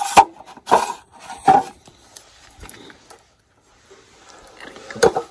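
Sharp metal clunks and rattles as parts are taken off a MIG welder's wire-spool holder: a handful of separate knocks, the loudest right at the start and another near the end, with light handling noise between.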